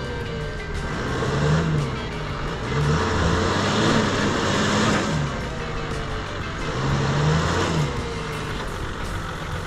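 Toyota 80 series LandCruiser bogged in deep mud, its engine revving up and down repeatedly as the wheels spin and churn the mud.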